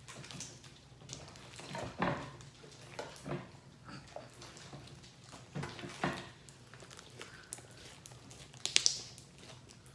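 Scattered light knocks and clicks of things being handled, with a sharper cluster of clicks about nine seconds in.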